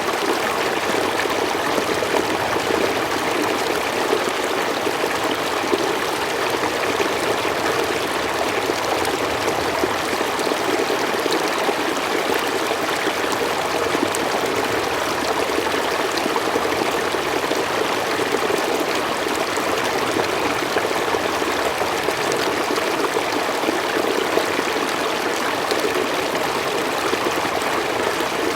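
Forest stream running steadily over rocks, a continuous even rush and trickle of flowing water.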